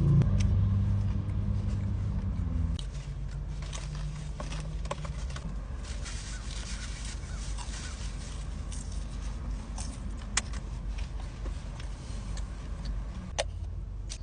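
Close-up eating sounds: scattered crunches and mouth clicks of chewing, over a steady low rumble. A low hum runs for the first few seconds and then stops.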